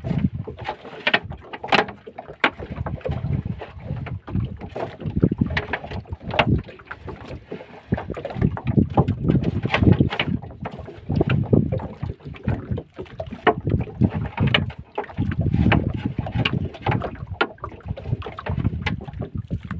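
Wind gusting on the microphone and water slapping against a small wooden boat, with irregular knocks and splashes as a fishing net is hauled in by hand over the bow.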